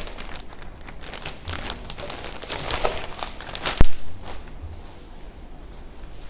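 Clothing packaging crinkling and being torn open by hand, with one sharp loud snap about four seconds in.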